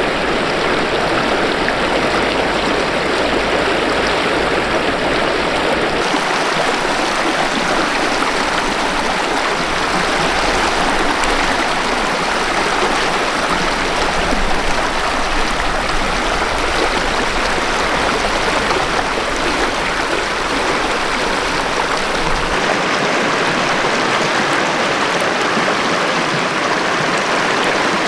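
A river rushing steadily over rocks, a loud, even rush of water whose low rumble shifts slightly about six seconds in and again near the end.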